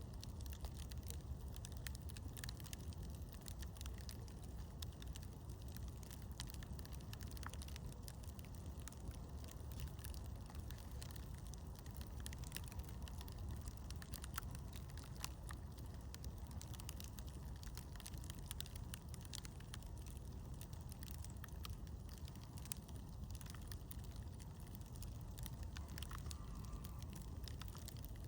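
Campfire burning and crackling: scattered sharp pops and snaps over a steady low rumble.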